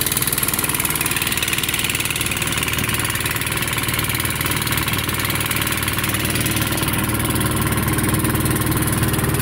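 Boat engine running steadily, slightly louder near the end.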